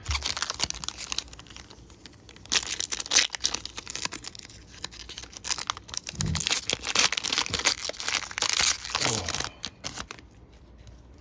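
A foil baseball card pack wrapper being torn open and crinkled in the hands, a long stretch of irregular crackly rustling that dies away near the end.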